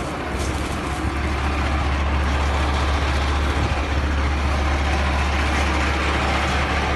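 Heavy vehicle engine running steadily, a deep even drone that comes in just after the start and holds, under a broad steady hiss.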